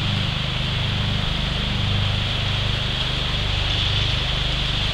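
River rapids rushing steadily, over a steady low hum that swells and fades every second or so.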